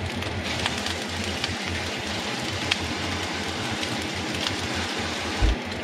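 Fried rice and scrambled egg sizzling steadily in a hot frying pan, with scattered small pops and crackles.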